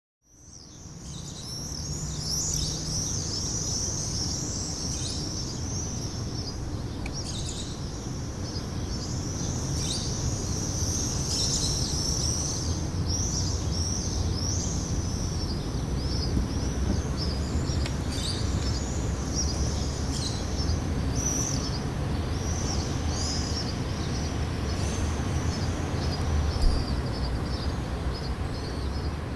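Many small birds chirping busily and without pause, over a steady low rumble, fading in from silence in the first second.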